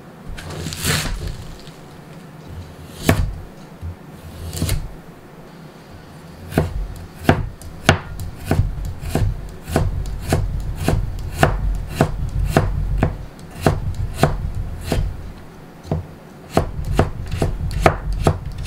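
Kitchen knife chopping vegetables on a plastic cutting board: a few separate strokes through garlic chives, then a steady run of knocks, about two a second, as carrot strips are cut into matchsticks.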